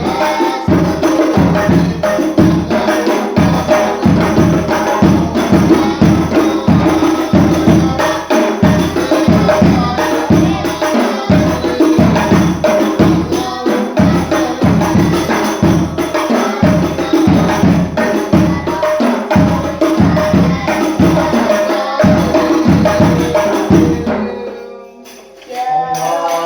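Hadroh ensemble of rebana frame drums playing a fast, dense rhythm under held sung tones. The drumming stops about 24 seconds in, and a voice chanting follows near the end.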